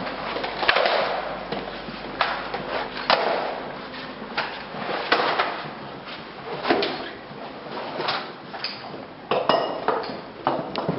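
Firefighters' boots stepping on a tiled corridor floor, irregular knocks about one a second, with their gear knocking along. Short metallic clinks near the end as the hose end is handled.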